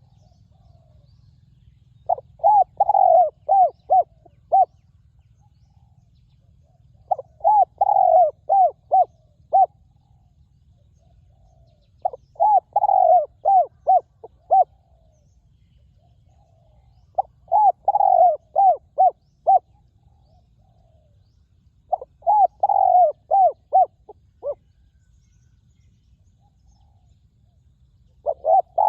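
Spotted dove cooing in repeated phrases, each a quick run of six or seven coos, one phrase about every five seconds.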